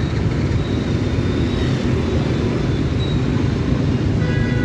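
Dense street traffic of motor scooters and motorbikes passing through an intersection: a steady low engine and road rumble.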